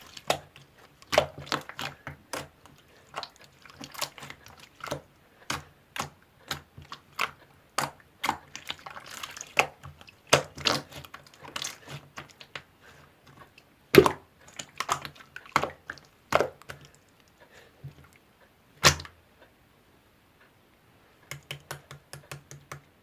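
Slime being squeezed and pressed by hand, making irregular clicking and popping sounds, with two louder pops partway through and a quick run of clicks near the end after a short pause.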